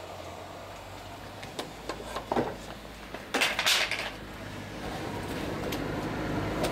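Hand work on a clamped, freshly steamed plank: a few light knocks and clinks of wood and clamps being handled, then a louder rustling clatter about three and a half seconds in as the cloth wrapping is pulled away, over a steady low hum.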